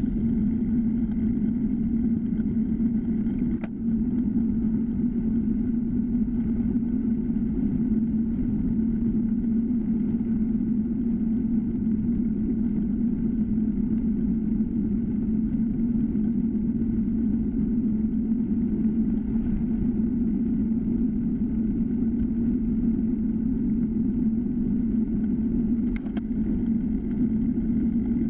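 Steady muffled rush of wind and tyre noise from a time-trial bicycle rolling on asphalt, picked up by a handlebar-mounted GoPro Hero3, with two brief clicks, about four seconds in and near the end.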